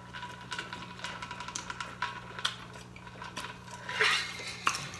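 Close-up mealtime noises: a steady run of small clicks, crackles and taps from biting and chewing fried chicken wings and handling a styrofoam food tray, with a louder clatter about four seconds in.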